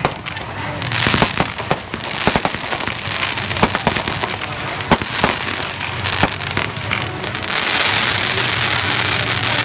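Aerial fireworks bursting overhead: a rapid run of pops and bangs, with dense crackling about a second in and again, louder, from about seven and a half seconds.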